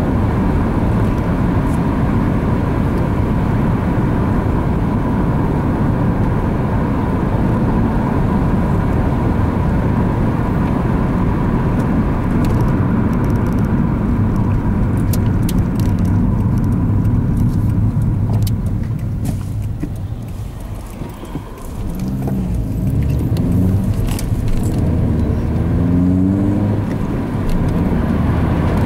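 Engine and road noise inside a 2006 Opel Astra coupé's cabin while driving: a steady drone that eases off about two-thirds of the way through as the car slows for a bend, then the engine note rises several times in a row as it accelerates up through the gears.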